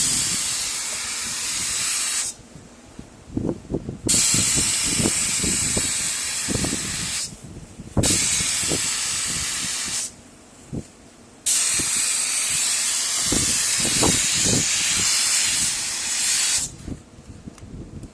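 High-pressure polyurea spray gun hissing in four long bursts as the trigger is pulled and released, with short low knocks under some of the bursts.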